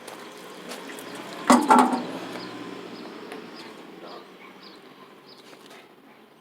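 Water running steadily as a container is refilled, slowly fading, with a loud knock about a second and a half in.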